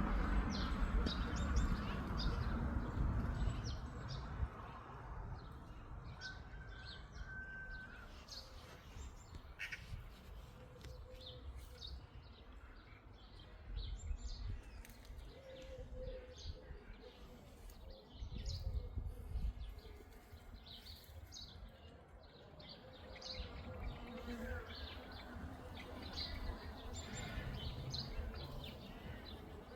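Small birds chirping and singing with many short high calls, while bees buzz on and off among the blossoms. A low rumble at the start fades within the first few seconds.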